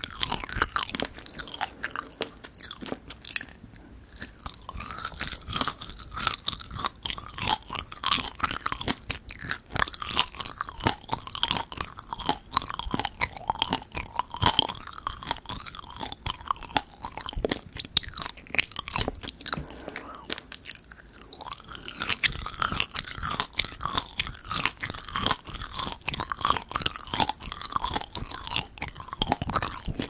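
Close-miked chewing of soft, chewy dried figs: a steady run of small wet clicks and crackles as the fig seeds are crushed between the teeth, easing off briefly twice.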